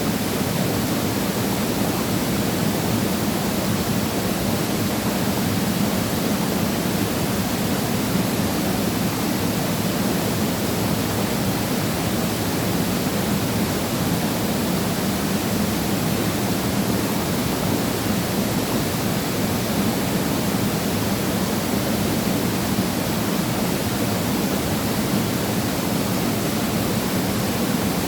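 Waterfall splashing down into a valley pool: a steady, unbroken rush of falling water.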